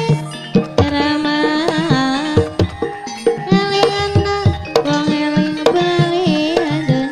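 Traditional music with hand-drum strokes under a held melody line that wavers and slides in pitch, typical of the gamelan-style accompaniment to an ebeg horse dance.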